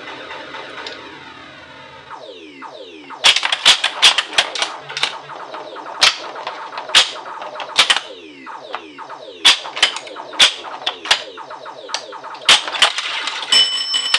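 1980 Williams Black Knight pinball machine in play: electronic sound effects sweeping down in pitch, then many sharp mechanical clacks of the ball and the playfield's flippers and bumpers firing. Near the end a steady high electronic tone sets in.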